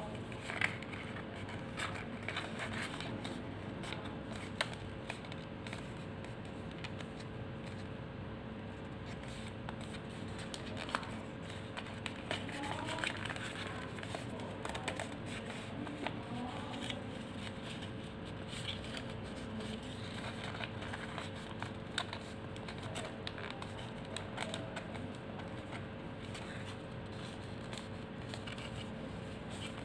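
Thin paper rustling, crinkling and being creased by hand as it is folded, with scattered small clicks and scrapes over a steady faint hum.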